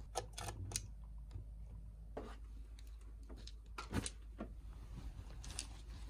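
Scattered light clicks and knocks of small objects being handled, about a dozen in all, the loudest about four seconds in.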